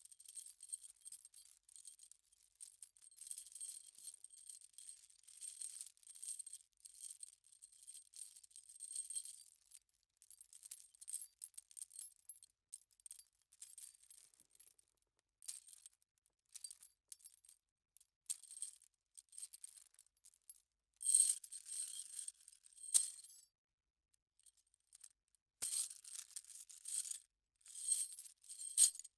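Metal chain rattling and clinking, its links jingling against each other. It is a dense continuous rattle for roughly the first third, then breaks into scattered short clinks. Louder rattling flurries come about two-thirds of the way through and again near the end.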